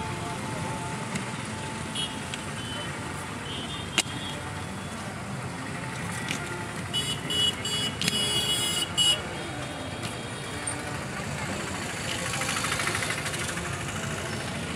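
Busy roadside traffic ambience: a steady background din of vehicles and people, with a vehicle horn tooting several short times in quick succession about seven to nine seconds in, and a single sharp click about four seconds in.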